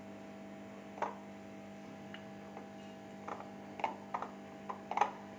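Scattered light clicks and taps of hands and glass bowls as oil is poured onto flour in a glass bowl and rubbed in by hand: one about a second in, then a quicker run of taps in the second half. A steady electrical hum runs underneath.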